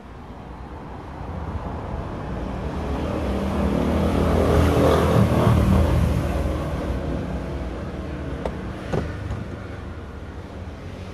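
A road vehicle passing close by, its noise swelling to a peak about halfway through and then fading. Two sharp clicks follow near the end.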